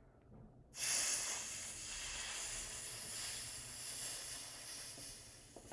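Red-hot, induction-heated metal plunged into a bowl of water: a sudden hiss of boiling water and steam about a second in, slowly fading as the metal cools.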